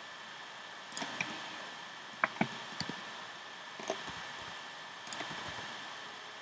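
Computer keyboard and mouse being clicked: scattered sharp clicks, the loudest a close pair a little after two seconds in, over a steady hiss.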